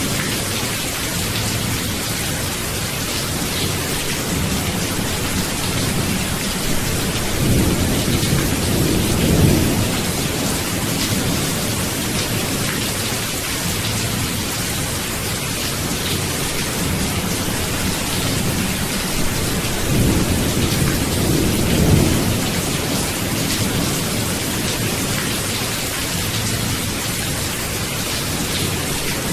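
Steady rain, an even hiss, with low rolling thunder that swells twice, about a third of the way in and again about two-thirds in.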